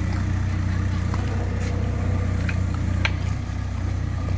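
Engine of a small crane machine running steadily with a low hum, with a few light clicks about two and a half and three seconds in.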